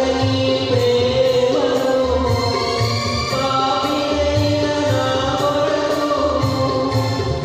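A man singing a Christian devotional song from a song book over instrumental accompaniment with a steady beat.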